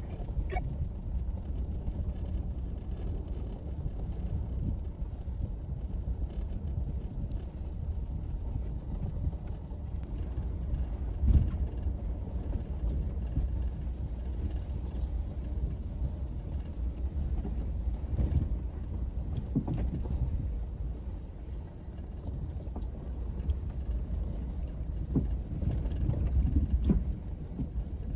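Off-road 4x4 vehicle driving along a dirt trail: a steady low rumble of engine and tyres, broken by a few short knocks and rattles, the loudest about eleven seconds in.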